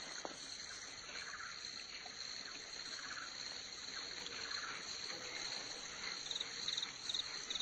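Crickets and other insects chirping at night: a steady high trill, with softer chirps repeating every second or so and a few short chirps near the end.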